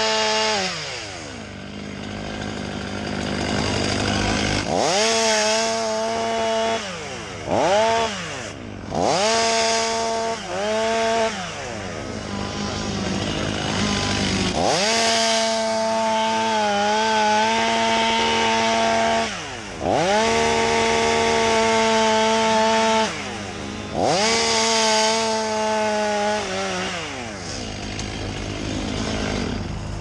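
Chainsaw-type saw revving up and holding at full speed through a series of cuts, dropping back between them, about seven times; the longest run lasts about five seconds.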